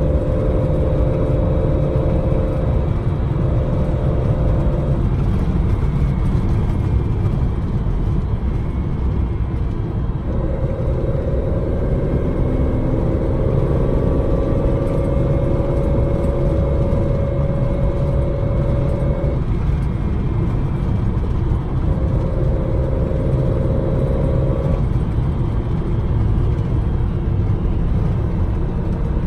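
Datsun 260Z's straight-six breathing through triple Mikuni carburettors while the car is driven, its engine note climbing slowly in stretches with breaks between, over a constant heavy low road rumble.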